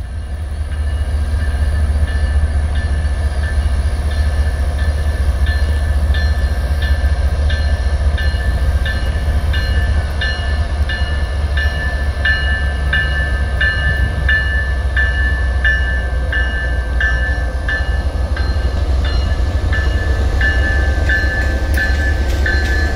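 Norfolk Southern freight train rolling past with a steady low rumble from the diesel locomotives and cars. Over it, a bell rings about twice a second, growing louder in the second half.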